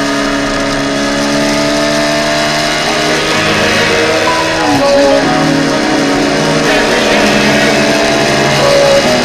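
Background music with held, sustained guitar notes that change pitch in steps.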